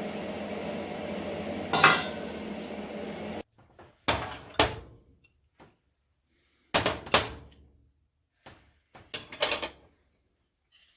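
A steady hum with one sharp clank, cutting off abruptly about three and a half seconds in; then several short bursts of metal clanking and clinking, a couple of strikes in each, with silence between them.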